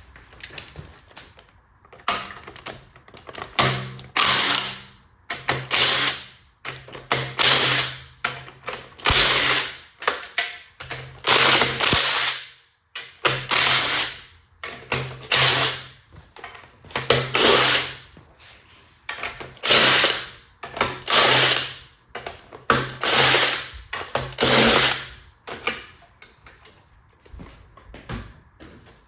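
Power drill/driver run in short bursts, about a dozen, often in pairs, with a motor hum and a whine that rises at the end of each burst: bolts being backed out during engine top-end teardown.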